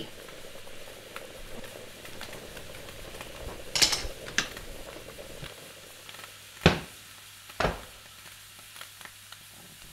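Cooking on a kitchen stove: a steady faint sizzle with a louder hiss about four seconds in, then two sharp knocks about a second apart.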